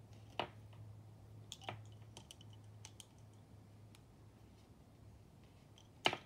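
Lace bobbins clicking against one another as they are crossed and twisted: a few scattered light clicks, the loudest near the end, over a steady low hum.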